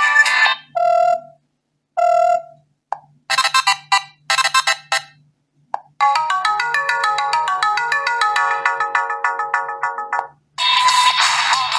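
Preset ringtones and message signals of a BQ Contact phone played one after another. A short two-note chime sounds twice, then a run of quick electronic blips, then a synthesized melody of about four seconds, and a louder tone begins near the end.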